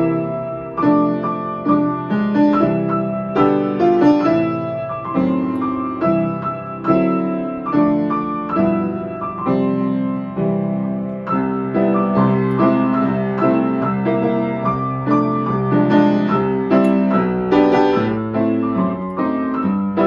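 Piano playing a simple piece: a melody over chords, with notes struck at an even pace throughout.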